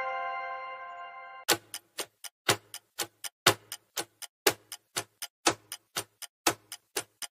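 A bright ringing chime fades out over the first second and a half, then a clock-style ticking starts: a louder tick every second with softer ticks between, the countdown timer sound of a quiz.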